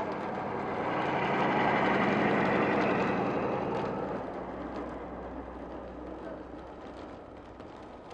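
A car driving past on a snow-covered street. The noise of it swells over the first two seconds, then fades away after about four seconds.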